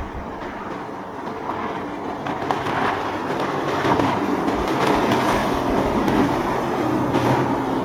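Motorboat engines running and growing louder about three seconds in, over a steady rushing noise.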